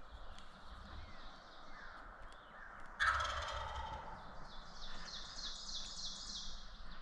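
A wild turkey gobbler gobbles once, loud and rattling, about three seconds in. A high, rapid bird song follows, over fainter songbird calls.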